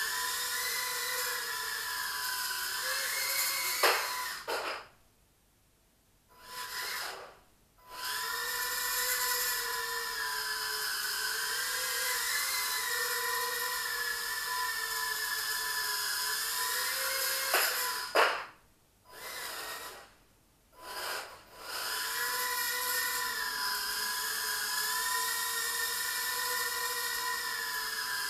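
Eachine Turbine QX70 micro quadcopter's motors and propellers whining, the pitch wavering up and down with the throttle. Twice comes a sharp knock, the motors cut out for a few seconds, spin up briefly, and then the whine resumes.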